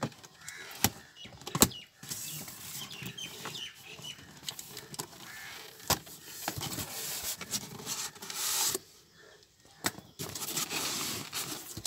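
Cardboard box being opened by hand: flaps scraping and rustling in several stretches, with a few sharp clicks and knocks of cardboard.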